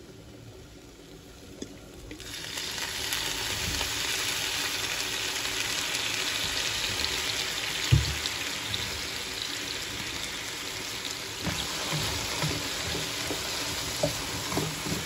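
Button mushrooms sizzling in a hot nonstick frying pan. The sizzle swells about two seconds in as soy sauce goes into the pan, then holds steady. There is a single knock about eight seconds in, and light spatula scrapes near the end.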